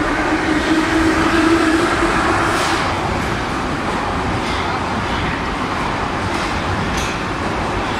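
Em-501/Ema-502 metro train pulling out of the station. A low motor hum rises slightly in pitch and fades about three seconds in, then the cars rumble past with a few sharp wheel clicks over the rail joints.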